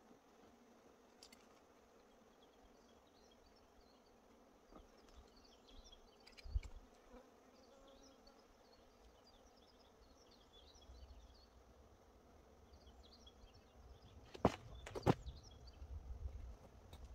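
Quiet orchard air with the faint buzzing of flying insects and scattered high chirps. A low rumble builds in the second half, and two sharp clicks come about half a second apart near the end.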